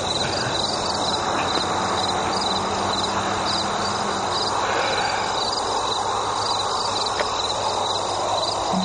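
Night insects, crickets, chirping in a steady chorus: a regular repeating chirp over a constant high drone. A low sustained music note comes in right at the end.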